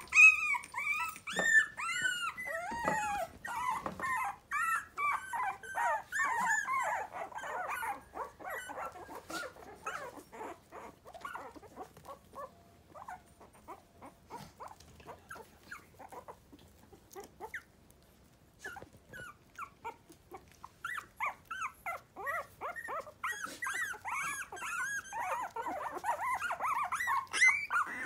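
A litter of three-week-old miniature pinscher puppies whining and squeaking in many short, high-pitched calls that rise and fall, often overlapping. The calls thin out in the middle, leaving small scattered ticks and scuffles, then build up again for the last several seconds.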